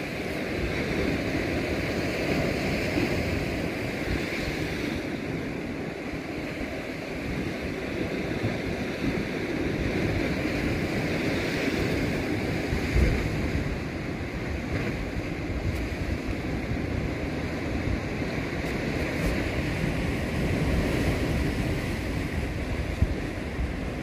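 Sea surf washing against a rocky shore: a steady rush of waves that swells and eases, with wind buffeting the microphone in low gusts.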